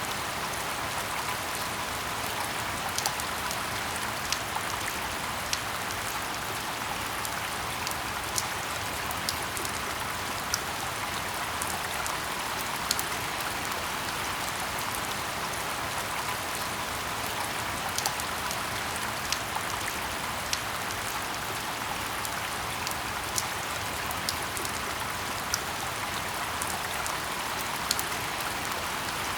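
Steady rain falling, an even hiss, with single drops striking close by irregularly, about one every second or two.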